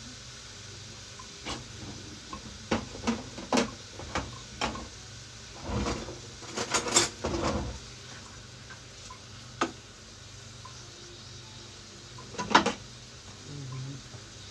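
A cooking utensil knocking and scraping in a frying pan as a beef and long-onion stir-fry is tossed, over a low sizzle. It starts as a string of separate sharp knocks, turns into a dense burst of clatter and scraping around the middle, and ends with two single knocks.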